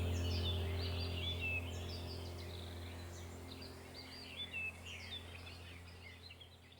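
Small forest birds chirping and twittering in a chorus of short calls, over a low steady hum, the whole fading out gradually toward the end.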